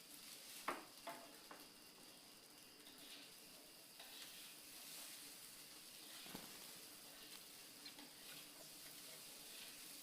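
Near silence: a faint steady hiss with a few soft clicks, the loudest just under a second in.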